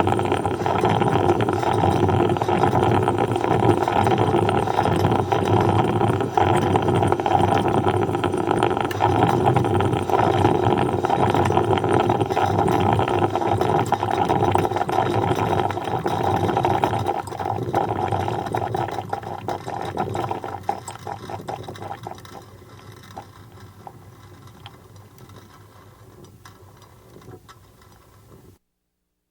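Coffee percolator operating, bubbling steadily, then dying away from about 17 seconds in to a faint crackle before cutting off.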